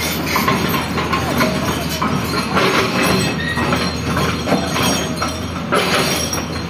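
Excavator working at demolition: its diesel engine running steadily under irregular metallic clanking, knocks and occasional squeals from the machine and the breaking structure.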